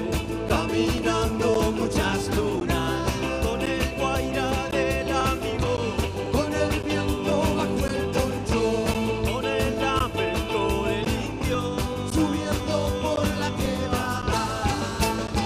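Live band playing a fast song: a drum kit keeps a steady beat under a strummed charango and other instruments.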